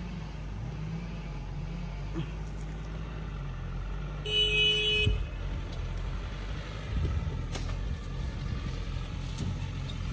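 Tata 407 4x4 light truck's diesel engine pulling over rough dirt, its pitch rising and falling with the throttle. A short horn blast sounds about four seconds in.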